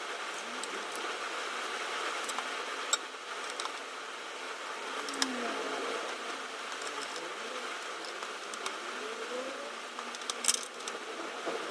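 Steady background hum with a few sharp clicks and light rattles of small hard parts being handled, the loudest cluster about ten seconds in.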